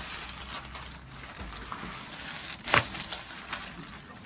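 Rustling and shifting of a person moving on a padded chiropractic treatment table, with one sharp click about three seconds in.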